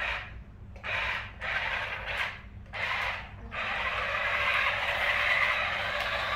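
Remote-control transforming Optimus Prime toy running its small motor and gears, whirring in several short bursts and then steadily for the last few seconds.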